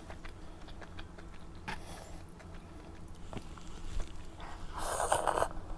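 Close-miked eating sounds: chewing with small wet mouth clicks, and a louder noisy burst of about a second near the end.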